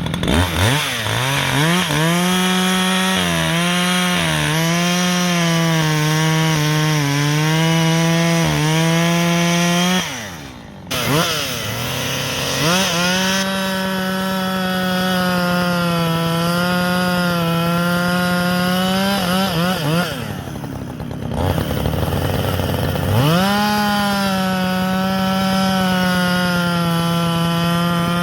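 Brand-new Husqvarna 562XP two-stroke chainsaw, on its first tank of fuel, running at full throttle through three long cuts in firewood. Its pitch sags a little under load, and it drops back toward idle twice, about ten and twenty seconds in, before revving up again.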